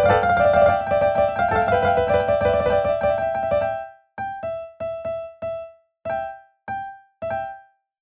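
Synthesized piano-like keyboard notes generated from the positions of starlings perched on power lines, each bird read as a note: a dense cluster of overlapping notes for about four seconds, then thinning to about eight separate notes, each dying away quickly, the last one near the end.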